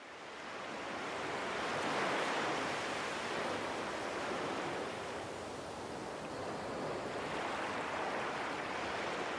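Ocean surf washing, fading in over the first second or so, with two slow swells: one about two seconds in and another near the end.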